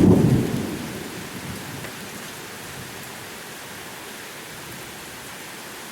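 Thunder rumbling, loudest at the start and dying away over about two seconds, then steady rain falling.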